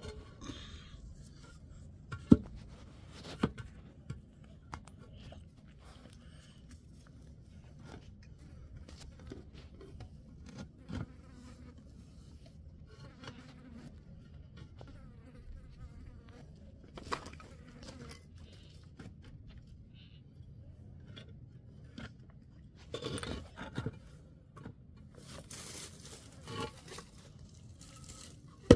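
A steady low buzz throughout, with scattered clicks and knocks: a sharp knock about two seconds in and another about a second later, and a stretch of rustling noise near the end.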